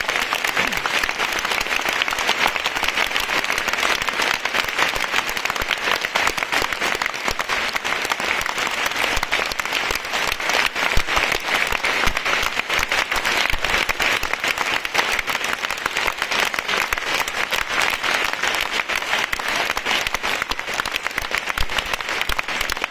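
A large seated audience applauding: dense, steady clapping of many hands that goes on without a break.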